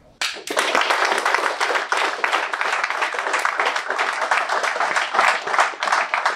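Audience applauding: many hands clapping, starting abruptly a fraction of a second in and continuing steadily.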